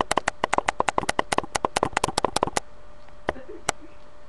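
Computer mouse clicked rapidly, about nine sharp clicks a second for two and a half seconds, then two single clicks near the end.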